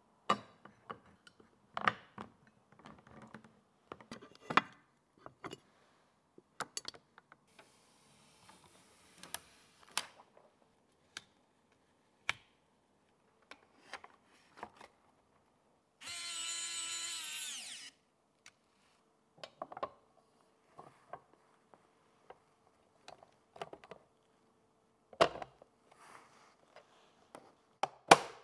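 Scattered clicks and taps of plastic and metal PC parts being fitted into a small case. About two-thirds through, an electric screwdriver runs for about two seconds, its whine dipping in pitch as it stops.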